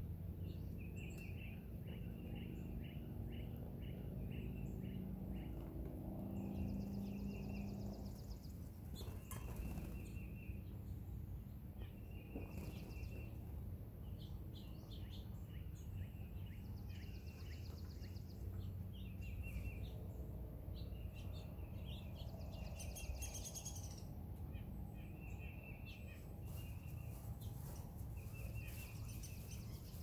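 Several small songbirds chirping and singing: short chirp phrases repeated every second or two, with higher, fast trills now and then, over a steady low background rumble.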